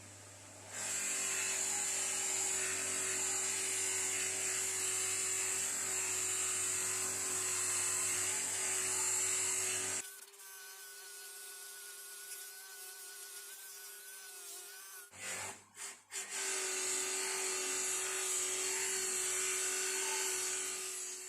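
Electric power tool running steadily while the pad saw handles are cleaned and polished to a shine. Its sound changes to a quieter, wavering whine about ten seconds in, cuts in and out a few times around fifteen seconds, then returns to the first steady sound.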